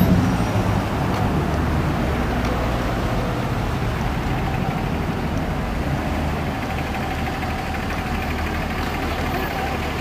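Road traffic: cars and trucks running on the road alongside, a steady low rumble.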